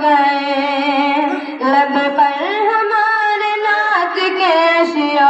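A boy's high voice singing solo and unaccompanied into a microphone: long held notes joined by ornamented glides up and down, with a brief dip for breath about a second and a half in.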